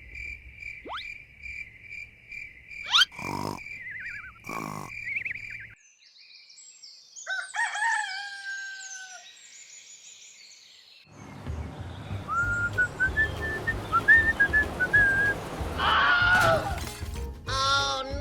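An edited sound-effect sequence. First a high beeping tone pulsing about five times a second, crossed by two quick rising whooshes. Then bird chirps over a noisy outdoor background, with a louder animal call, rooster-like, near the end.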